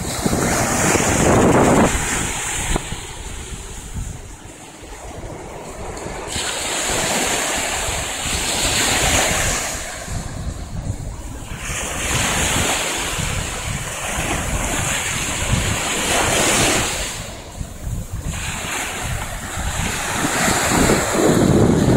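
Small surf breaking and washing up a sandy beach, swelling and fading in several long surges, with wind buffeting the phone's microphone.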